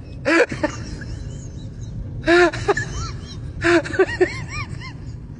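Short wordless vocal sounds in three bursts, each rising and falling in pitch, over a low steady rumble.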